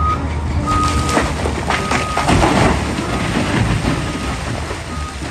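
Loader engine rumble with a reversing alarm beeping at one steady pitch, the beeps thinning out toward the end; a rushing, clattering noise swells about two to three seconds in.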